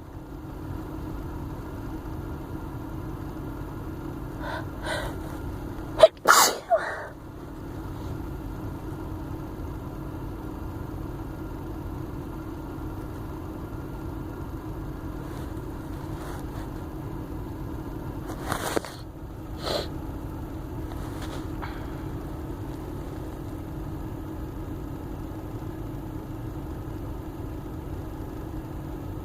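A woman sneezing: faint catching breaths about four and a half seconds in lead into one loud sneeze about six seconds in, then two shorter, quieter bursts around nineteen seconds. A steady low hum runs underneath.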